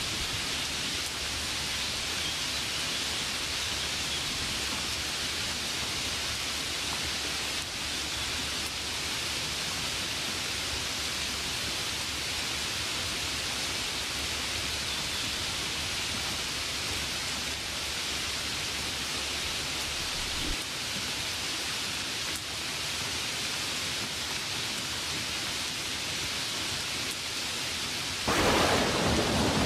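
Steady rain hiss over a low rumble that drops away about two-thirds of the way through. Near the end a louder, sudden clap of thunder breaks in.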